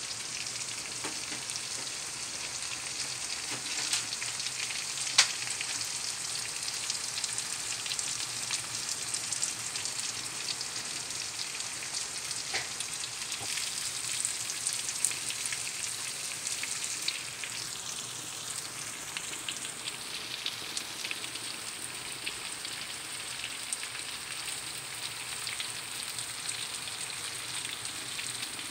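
Chicken, potatoes and green onions frying in a stainless steel pan: a steady high sizzle with scattered small crackles. A single sharp click sounds about five seconds in.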